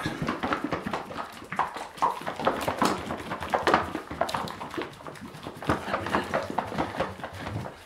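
Car paint and thinner being shaken hard by hand in a lidded mixing cup: liquid sloshing with quick, irregular knocks and splashes.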